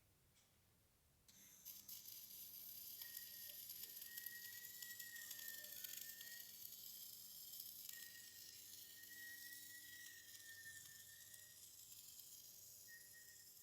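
Electric arc welding: the arc strikes about a second in and crackles and sizzles steadily, with a thin high whine that comes and goes in stretches of a few seconds.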